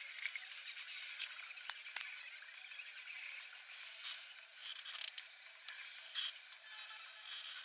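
Hand-tool work on an electric guitar: a few sharp clicks and several short scraping sounds.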